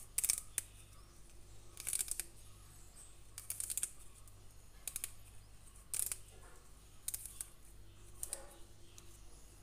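Fingers stripping moringa leaves from their stems: short crisp rustles and snaps, roughly once a second, over a low steady hum.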